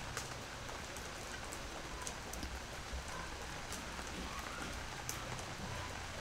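Knife cutting duck gizzards on a wooden chopping board: short, irregular taps and clicks as the blade meets the board, over a steady background hiss.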